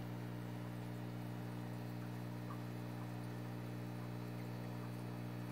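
Steady low electrical mains hum with several evenly spaced overtones, unchanging throughout.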